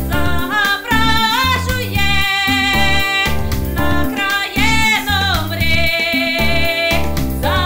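A woman singing with expressive pitch glides over instrumental accompaniment with a steady bass line.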